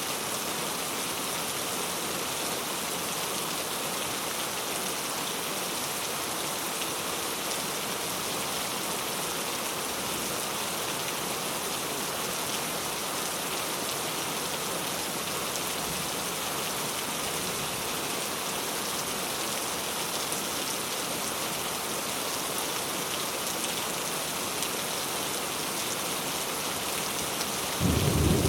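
Steady rain falling and pattering on surfaces, an even hiss throughout. Near the end, a brief, louder low rumble sets in.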